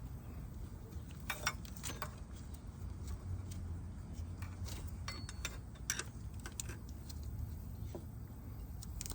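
Scattered light clicks and taps of hand tools and car parts being handled, over a low steady hum.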